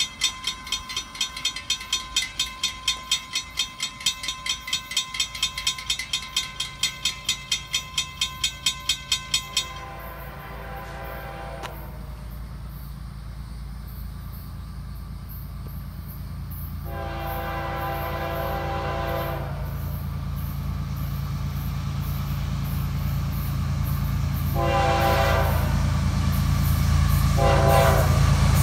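A railroad crossing bell clangs steadily, about two strokes a second, for the first ten seconds. Then the approaching Florida East Coast Railway freight's GE ES44C4 diesel locomotives sound the horn in blasts, two long and then shorter ones, over an engine rumble that grows louder as the train nears.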